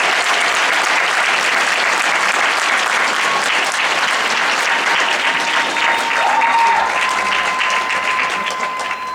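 Audience applauding steadily; a single held high note comes in about two-thirds of the way through, and the clapping dies away near the end.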